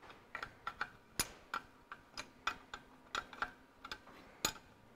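Light metallic clicks of a 9/16 AF spanner working the injector pipe nuts on a Ferguson 23C diesel engine: a dozen or so short, irregular ticks, about two to three a second.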